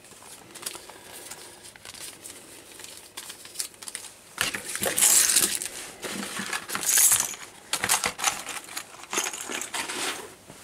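Plastic proximity key fobs on metal rings clinking and clicking together as they are handled and gathered up. Two louder stretches of rustling and scraping come around the middle as the items are packed away.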